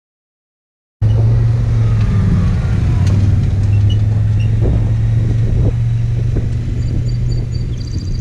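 Side-by-side utility vehicle's engine running steadily with a low, even hum as it drives off pulling a trailer. It starts suddenly about a second in and grows slowly fainter.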